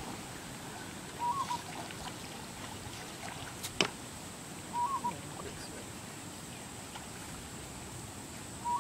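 A bird calling: a short call that rises then falls, repeated three times about every four seconds. A single sharp click about midway is the loudest moment.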